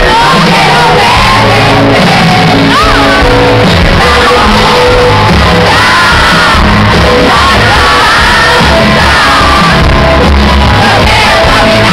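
Live pop band playing loud, with a male lead singer singing into a handheld microphone and audience shouting mixed in, heard from among the crowd.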